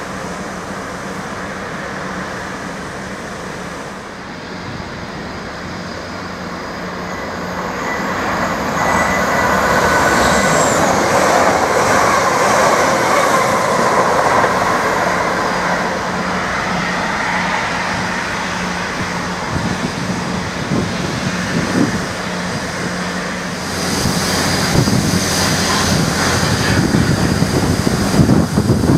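Passenger trains running on the line, chiefly a Northern Class 333 electric multiple unit passing through the station: a steady rush of wheel-on-rail noise that swells to its loudest about ten seconds in, with faint high squealing tones, and rises again near the end as another train approaches.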